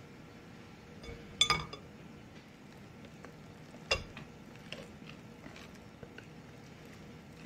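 A stainless steel mesh sieve set down on a glass bowl with a ringing metal-on-glass clink about a second and a half in, then a second, shorter knock about four seconds in. After that come faint soft plops as thick yogurt batter is poured into the sieve.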